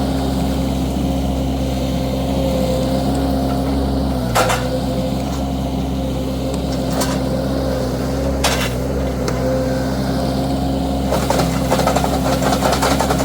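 Wacker SM120 mini skid steer's engine running steadily under work, with three sharp cracks about 4, 7 and 8½ seconds in as its grapple tears at a bush. A fast rattle joins in near the end.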